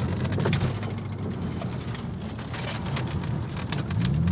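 Eagle Talon AWD turbo's four-cylinder engine heard from inside the cabin during an autocross run, overlaid by a dense crackle of sharp clicks; the engine note rises near the end as the car accelerates.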